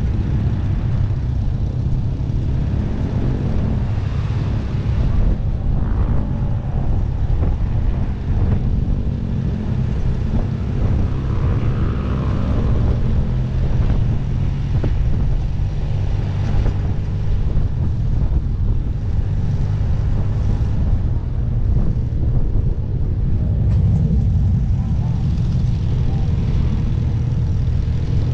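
Motorcycle engine running on the move, its pitch rising and falling in places as it speeds up and slows, under heavy wind rumble on the microphone.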